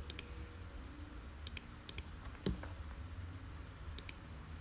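Computer mouse clicking, several quick double clicks a second or two apart, over a low steady hum.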